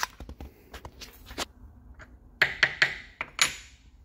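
Short clicks and taps, then a few louder knocks and clatters about two and a half to three and a half seconds in: a clamp and aluminium seat-brace parts being handled and set on a workbench.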